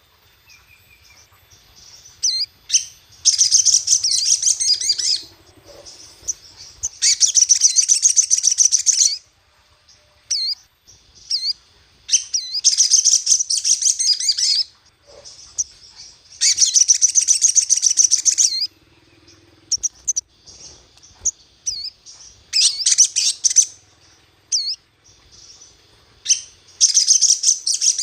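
Sogon (sogok ontong) songbird singing in repeated bouts of high-pitched, rapid chattering trills, each lasting about two seconds, with short chirps in the gaps. This is a 'pancingan' lure call, used to provoke and stir up other sogon birds.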